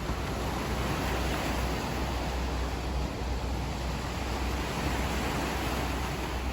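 Steady rush of sea surf and wind, with a low wind rumble on the microphone.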